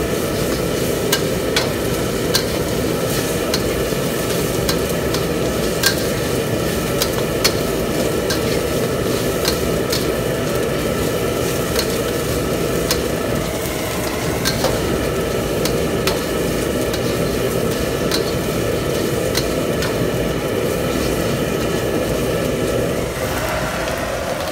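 Chicken frying and sizzling in a stainless-steel wok, turned with a metal spatula that clicks and scrapes against the pan every second or two, over a steady background roar.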